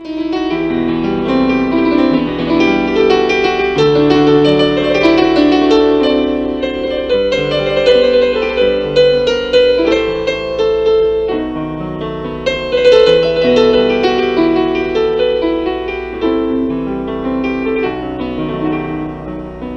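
Background piano music: a keyboard piece of sustained chords and melody notes.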